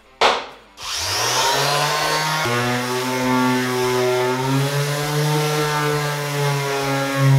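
A short loud whoosh, then the Einhell TE-OS 1320 triangular sander's electric motor starting up, its hum rising in pitch about a second in, and running steadily with a hiss as the pad sands a wooden board. The pitch of the hum shifts slightly about two and a half seconds in.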